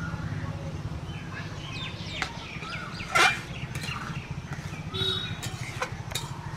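A ladle stirring thick curried yellow peas in a metal pot, with a few sharp clinks against the pot, over a steady low hum. Chickens cluck and small birds call in the background.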